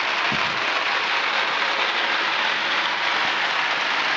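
Steady rushing hiss of an artificial snow machine blowing fake snow, even and unbroken throughout.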